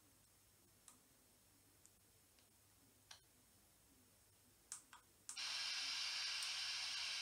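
A few faint clicks over near silence, then about five seconds in a ghost box radio switches on into a steady hiss of static.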